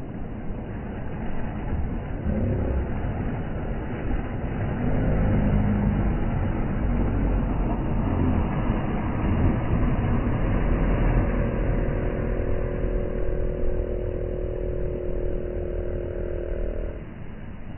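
Outboard boat motor running, growing louder a few seconds in. A steady higher hum joins partway through and cuts off suddenly near the end.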